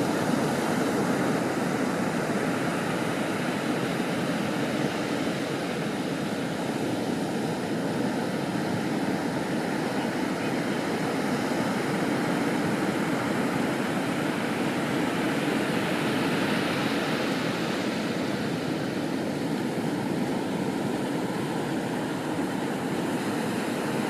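Ocean surf breaking along the shore: a steady, even rush of water noise with no distinct crashes.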